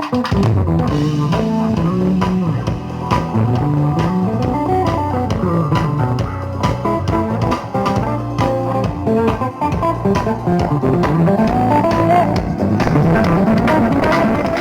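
Recorded music with a prominent moving bass line, guitar and drums, played loud through a large parade sound system during a sound check.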